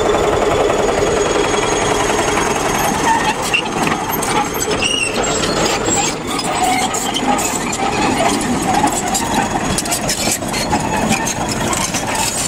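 Crawler bulldozer's diesel engine running, with a dense clatter of short clicks setting in about three seconds in.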